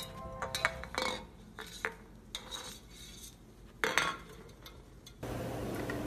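A small metal drink can clinking and knocking against a wooden floor as a green-cheeked conure pecks and pushes it. There are several sharp clinks at uneven intervals.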